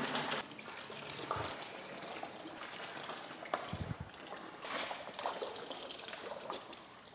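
Water and spent activated carbon trickling and pouring from a tipped-over filter tank into a plastic tub, louder for the first half second and then a thinner trickle. A few knocks and a low thump near the middle.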